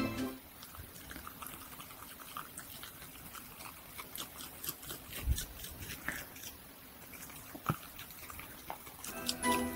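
A dog eating ramen noodles from a bowl: quiet, wet chewing and licking with many small clicks, and a couple of sharper knocks about five and eight seconds in.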